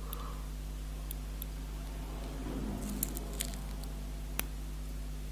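A few faint, irregular small clicks and light rubbing from handling a Vostok Amphibia watch as its screw-down crown is unscrewed, the sharpest click about four seconds in, over a steady electrical hum.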